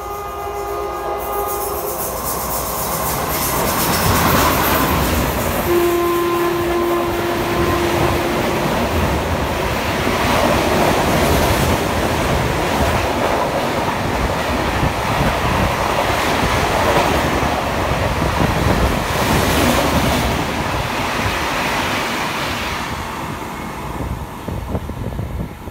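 An express train drawn by a WAP-4 electric locomotive passes through the station at speed without stopping. A horn chord dies away at the start, then the clatter and rumble of the coaches' wheels on the rails builds over the first few seconds and holds steady. A single steady horn note sounds about six seconds in for about three seconds, and the passing noise fades near the end.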